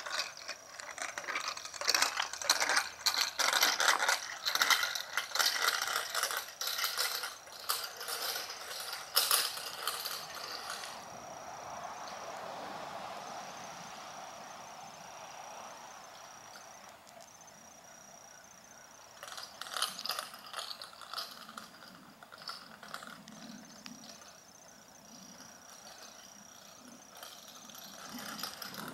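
A child's bicycle with training wheels rolling over asphalt, making rapid clicking and rattling. It is loudest for the first ten seconds and again about twenty seconds in, and quieter in between.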